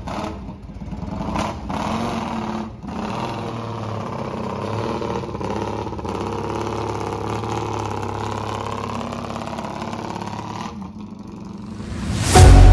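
Triumph Thruxton's parallel-twin engine running steadily as the motorcycle pulls away, its sound dropping shortly before the end. Loud rock music with electric guitar cuts in at the very end.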